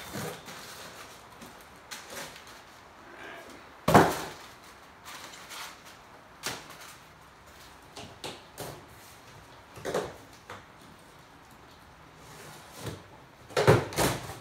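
Cardboard shipping boxes being handled and opened, with scattered knocks and rustles. The loudest thump comes about four seconds in, and a cluster of knocks comes near the end.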